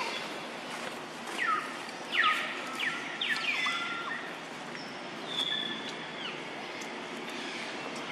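A run of short, high-pitched animal calls, each sliding down in pitch and then levelling off, several in quick succession, over a steady hiss.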